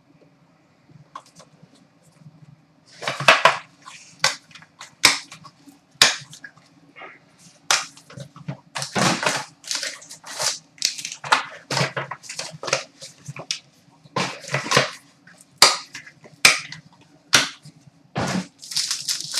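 Hands tearing open and unwrapping a sealed hockey card box: the cardboard and wrapping crackle and crinkle in quick, irregular snaps, starting about three seconds in.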